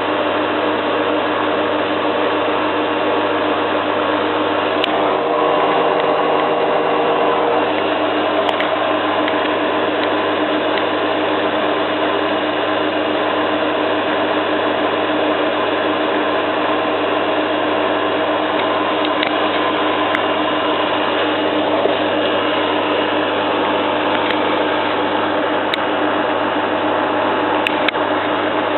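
Zanussi FLA1002W front-loading washing machine in its spin at top speed: a steady hum and whine from the motor and spinning drum, with a few light ticks.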